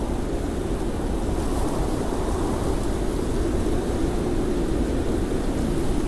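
Blizzard wind blowing steadily, an even, deep rushing noise with no distinct gusts.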